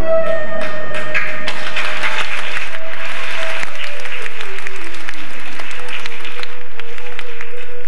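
Audience applauding over background music; the clapping swells about a second in and thins out near the end, while a slow melody of held notes carries on underneath.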